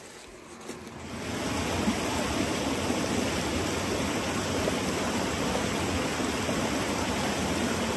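Creek water rushing steadily, starting about a second in.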